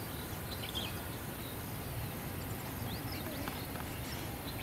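Open-air riverbank ambience: a steady low background rumble with a few faint, short high chirps scattered through it.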